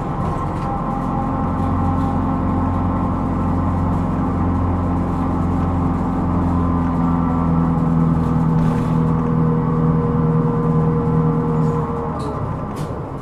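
Cabin sound of a Hino Rainbow II non-step bus underway: its diesel engine pulls steadily under load, with a steady whine in it for several seconds. It eases off about twelve seconds in. The bus is one the recordist flags for an abnormal running noise.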